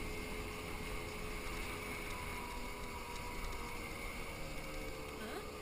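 Motor scooter's small engine running steadily at riding speed, a constant drone.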